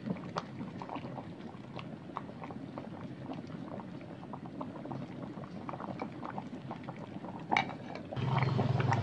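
Pumpkin chunks boiling in water in an electric cooking pot: a steady bubbling with many small pops. Near the end the glass lid clinks down onto the pot and a louder low rumble starts.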